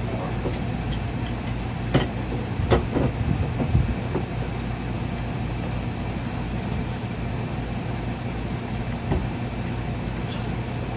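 A few metallic clicks and taps of a wrench working a steel fitting tight on a hydraulic bead breaker, over a steady low hum.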